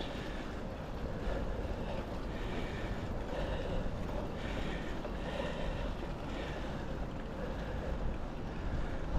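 Wind rushing over the microphone of a mountain bike on the move, a steady noise with a low rumble underneath.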